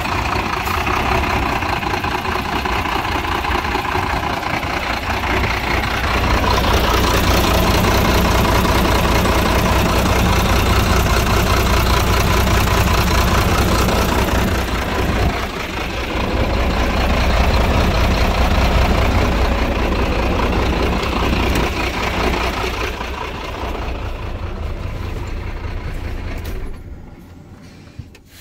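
Volvo FM9 truck's six-cylinder diesel engine running steadily at idle. It is loudest for a long stretch in the middle, then much quieter and muffled near the end, as heard from inside the cab.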